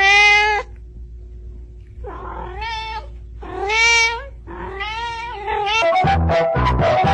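A domestic cat meowing four times, each call bending up and down in pitch. Music with a steady beat comes in about a second before the end.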